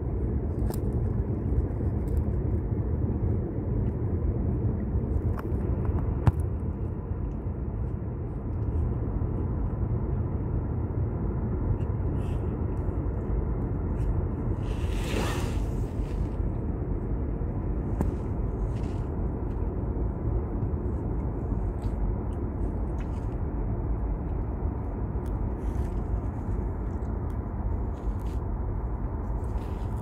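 Outdoor riverside ambience: a steady low rumble with faint scattered clicks and a brief hiss about halfway through.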